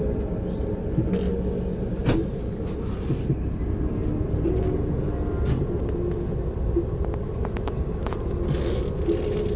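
Steady low rumble of a moving bus, engine and road noise heard from inside the passenger cabin, with a few light knocks and rattles.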